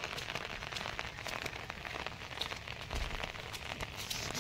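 Rain pattering on an open umbrella's fabric canopy overhead: a steady patter of many small drop ticks.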